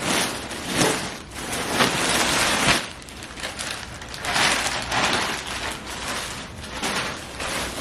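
Plastic packaging rustling and crinkling in irregular bursts as a mailer package is opened and its contents handled.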